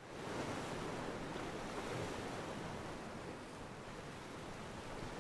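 Steady outdoor rushing noise of wind and harbour water, with uneven low buffeting from wind on the microphone; it comes up from silence right at the start.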